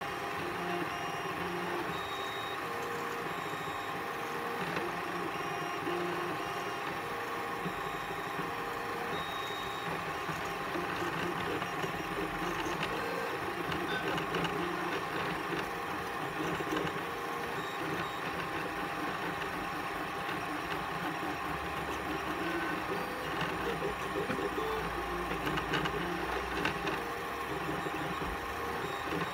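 CTC 3D printer printing: its stepper motors give short whining tones that jump in pitch as the print head moves back and forth, over the steady hum of the print-head cooling fans.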